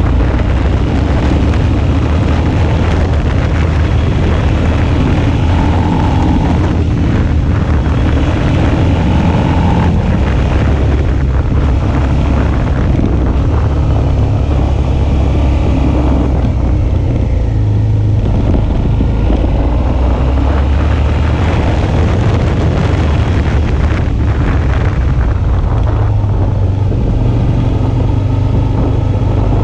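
Suzuki V-Strom 650's V-twin engine running under way, its note shifting up and down a few times, with wind buffeting the microphone.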